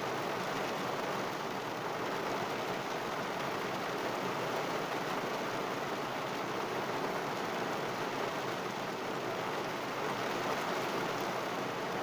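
Heavy rain falling on a car, heard from inside the car: a steady, even hiss of rain on the roof and glass.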